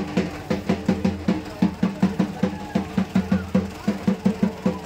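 Drum beaten in a fast, steady rhythm, about five or six pitched strokes a second.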